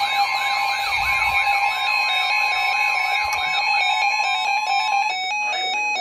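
Weather alert radios sounding their alarm for a High Wind Warning: a rapid warbling siren-like tone over a steady alert tone, giving way about five seconds in to electronic beeps stepping up and down in pitch.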